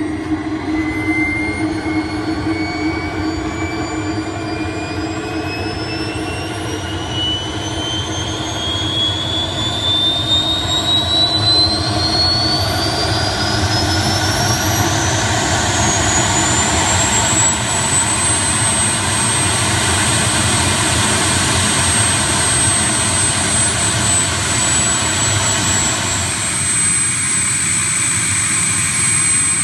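Model jet turbine of a large radio-controlled F-104 Starfighter spooling up after starting: a high whine that climbs steadily in pitch for about eighteen seconds, then levels off and runs steady.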